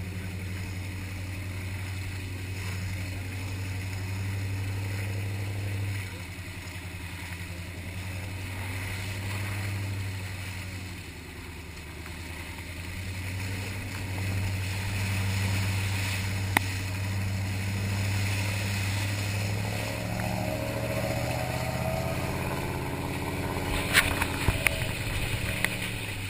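Jeep engine running at low, steady revs, its note rising and falling a little as it crawls along a muddy, rutted track on mud-terrain tyres. A few sharp knocks come near the end.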